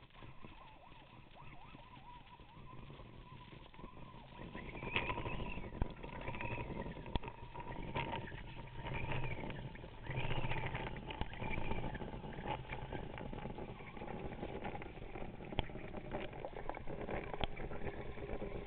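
Underwater noise picked up through a diving camera's housing as a freediver swims up from depth: water rushing past with a faint steady hum, louder from about five seconds in, and scattered sharp clicks and knocks.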